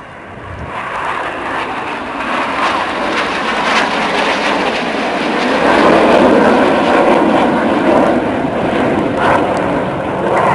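Red Arrows' BAE Hawk jet trainers flying past in formation, their jet noise a rushing roar that builds from the start to its loudest about six seconds in and stays loud.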